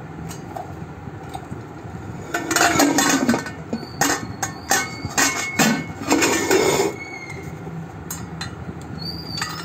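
A metal pressure cooker and its lid being handled: clinks, knocks and scraping of metal against metal and the floor, busiest from about two seconds in until about seven seconds.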